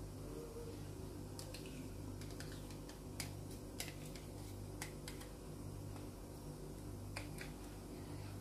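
A metal spoon tapping and scraping against a small plastic cup and the plastic bowl of a mini chopper: a handful of sharp, irregular clicks over a steady low hum.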